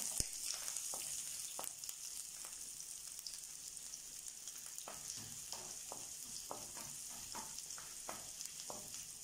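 Garlic, ginger, shallots, green chillies and curry leaves sautéing in coconut oil with a steady, quiet sizzle, while a wooden spatula stirs them round a coated frying pan, giving irregular light taps and scrapes.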